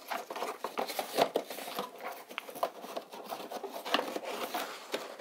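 Cardboard toy box being opened by hand: the flap and cardboard insert scraping and sliding, with irregular taps and rustles.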